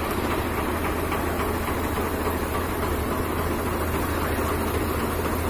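Diesel tractor engines running steadily with an even low hum.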